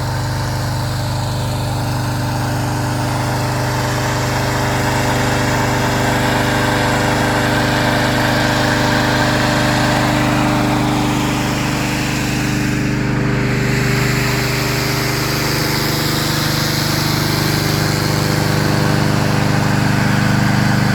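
Small gasoline engine of a remote-control track mower running steadily at a constant speed.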